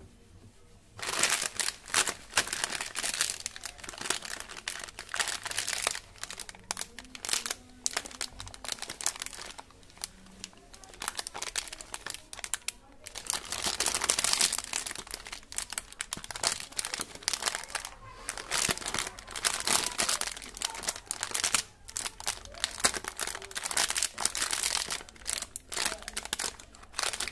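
Small plastic candy packets crinkling in the hands. Candyman Tadka soft masala candy wrappers are picked up, squeezed and worked, starting about a second in and going on in irregular bursts.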